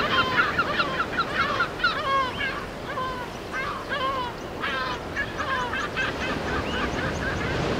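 A flock of gulls calling, many short rising-and-falling cries overlapping one another, over a steady wash of noise.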